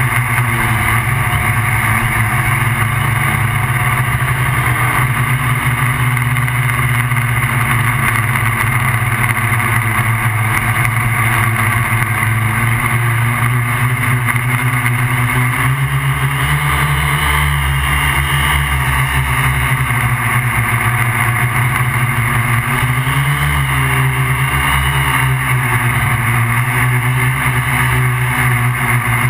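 MikroKopter QuadroKopter XL quadcopter's electric motors and propellers buzzing steadily in flight, heard from the GoPro mounted on the craft. The pitch wavers a few times past the middle as the motor speeds change.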